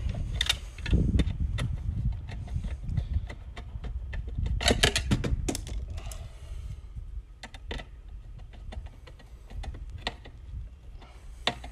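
Wires and metal parts being handled inside a metal spa disconnect box: scattered clicks, taps and light rattles, with a quick run of clicks about five seconds in, over a steady low rumble.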